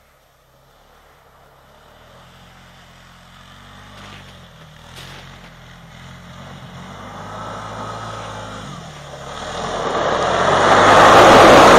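Suzuki Eiger 400 ATV's single-cylinder four-stroke engine running as the quad drives over snow toward the listener, growing from faint to loud. Its engine note rises and falls with the throttle.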